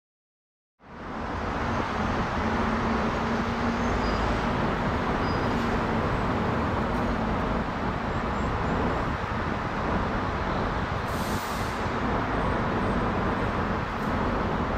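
Jet engine noise of a Boeing 787-9 airliner passing high overhead: a steady, even rushing sound that cuts in suddenly about a second in.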